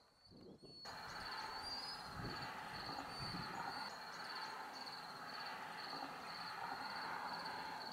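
Faint outdoor field ambience that begins about a second in: a steady, high, pulsing trill over a soft hiss, with a few short, higher chirps.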